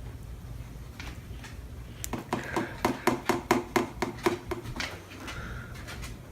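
A utensil knocking against the side of a mixing bowl in a quick run of ringing strokes, about five a second, for roughly three seconds: slime mixture being stirred.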